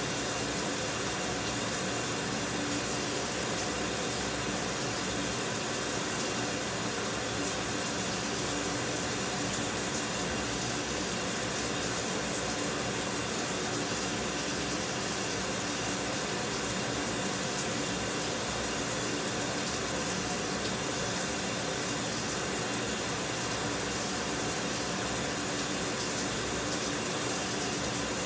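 Shower running: a steady, unbroken hiss of falling water spray.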